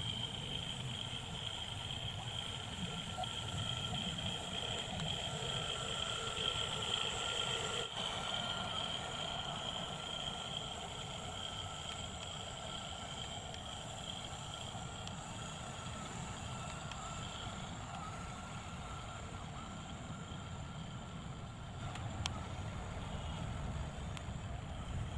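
Radio-controlled model construction vehicle running: its electric motor and gearing give a steady high whine over a low rumble, with a few small clicks near the end.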